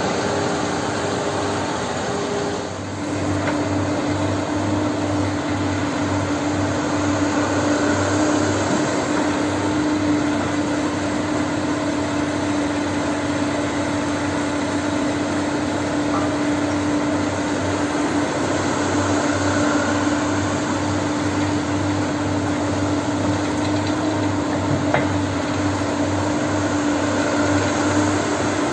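Diesel engine of a Hyundai crawler excavator running steadily under load as it digs and loads a dump truck, with a steady hum over a fast low throb. Briefly dips about three seconds in, after which the hum settles lower.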